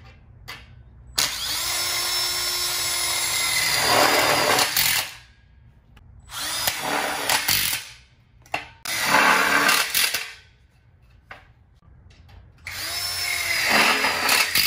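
Cordless impact drill driving low-profile flush-head screws into a metal tube frame, in four separate runs; the first is the longest. Each run starts as a steady whine and grows louder and rougher toward its end as the screw seats.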